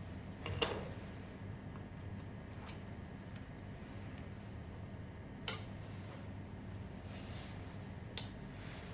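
Small metal tools and parts clinking and tapping: three sharp clinks, one with a brief high ring, and a few fainter ticks, over a low steady hum.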